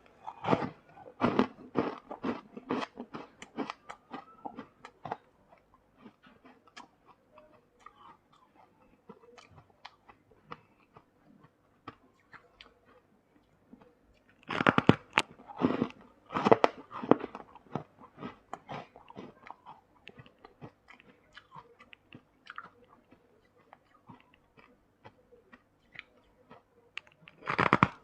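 A person biting into and chewing frost ice, crisp and crunchy. Loud bursts of bites come near the start and again about halfway through, with quieter, rapid chewing crunches between them and another bite beginning near the end.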